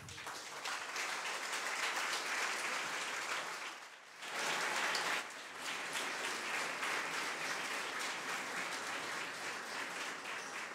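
Audience applauding. The clapping dips briefly about four seconds in, swells again, then carries on a little softer.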